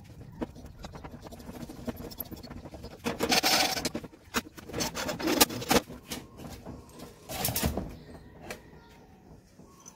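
A steel bracket being handled and clamped in a bench vise: metal scraping and clinking, with scattered sharp clicks and three louder rasping bursts about three, five and seven seconds in.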